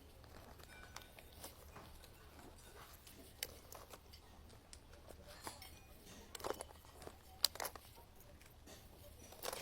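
Faint rustling and scattered light clicks and knocks of small items being handled and taken out of a handbag, with a few sharper knocks around the middle and later on.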